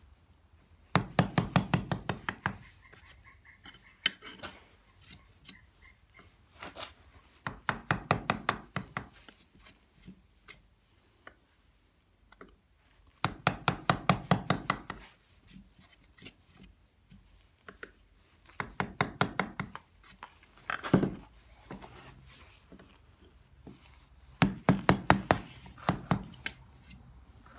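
A mallet tapping a wooden-handled carving chisel into the relief, in quick runs of about ten light blows at roughly seven a second. There are about six runs, with one harder single knock near the end and faint paring and scraping of the chisel between them.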